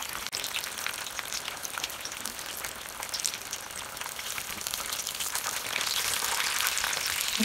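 Crumb-coated fish fillets frying in hot oil in a pan: a steady sizzle thick with small crackling pops. It grows a little louder near the end.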